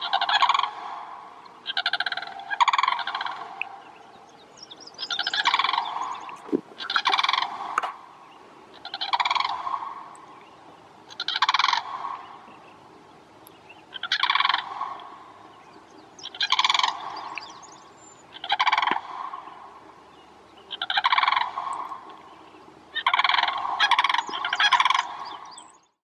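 Sandhill cranes calling: a dozen or so loud, rolling, rattling calls, each under a second long, repeated every one to two seconds, some in quick pairs.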